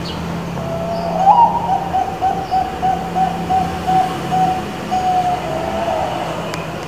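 Zebra dove of the Bangkok perkutut song strain cooing one full song. A lower opening note swells up to a high note, then comes a run of about a dozen quick even coos, about three a second, and it ends in a drawn-out final note.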